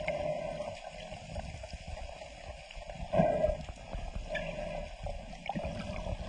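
Muffled underwater water noise as heard by a camera in a housing: sloshing and gurgling with scattered small knocks, and a louder surge about three seconds in.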